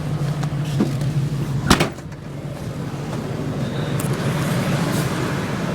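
Truck engine idling with a steady low hum, and one sharp knock a little under two seconds in.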